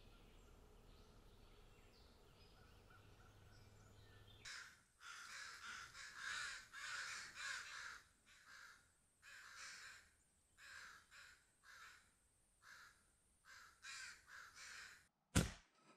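Faint steady hum for the first few seconds. Then, from about four and a half seconds in, a crow cawing a dozen or so times at irregular intervals. A single sharp, loud click comes near the end.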